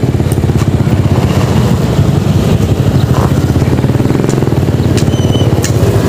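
Motorcycle engine running steadily at low revs, heard from the rider's seat, with a rapid, even beat.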